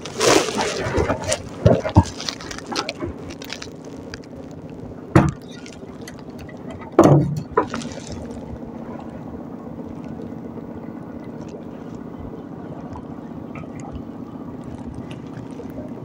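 Handling noise as a freshly caught giant freshwater prawn is taken off the hook and line: a flurry of clattering and rustling in the first few seconds, then two sharp knocks about five and seven seconds in. From about eight seconds on, a steady low hum.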